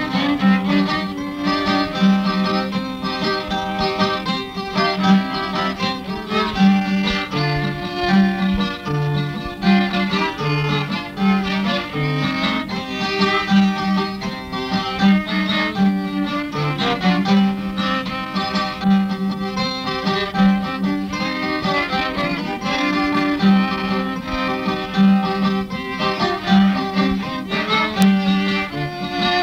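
Mexican chilena played on violin and guitar: a violin melody over a guitar accompaniment whose bass alternates between two low notes.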